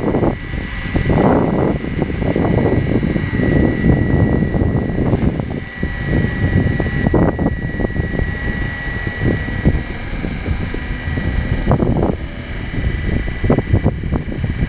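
Radio-controlled 470-class BO 105 scale helicopter flying, its steady high whine held throughout, under loud gusts of wind buffeting the microphone.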